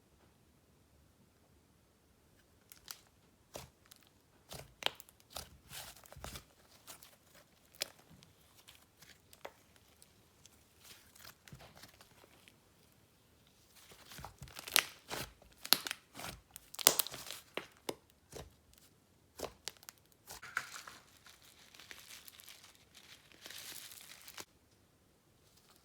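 Slime being played with by hand, giving irregular crackling and popping sounds that come thickest about halfway through.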